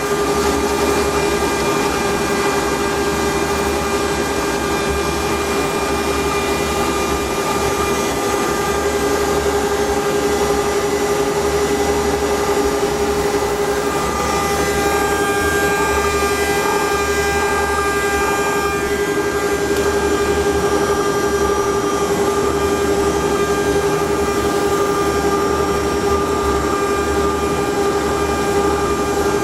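CNC router running steadily while V-carving at a slow feed: a constant high hum from the spindle over a steady noise, with faint higher tones that shift now and then as the axes move.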